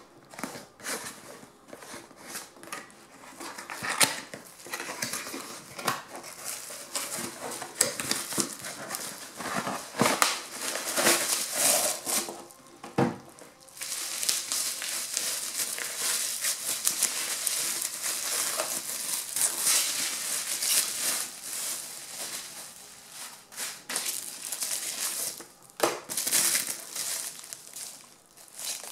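Plastic bubble-wrap packaging crinkling and rustling as it is handled and pulled off a boxed wall clock, with a few sharper clicks and knocks.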